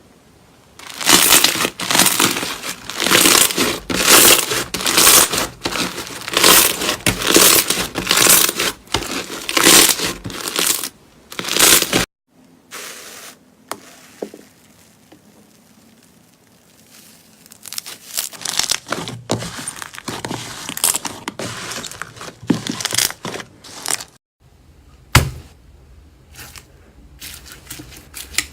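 Slime being squeezed and stretched by hand, giving crackly squishes about twice a second for the first ten seconds or so, then quieter, scattered crackles with a sharp pop near the end.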